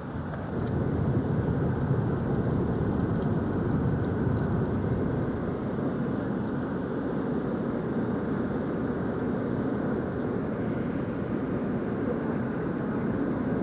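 Steady road and engine noise of a moving car, a continuous rumble and hiss that swells slightly about a second in.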